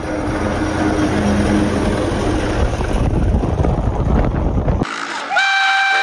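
A tractor running as it tows a disc plough, a loud, dense rumble that cuts off suddenly near the end. Then a steam traction engine's whistle starts, one steady note.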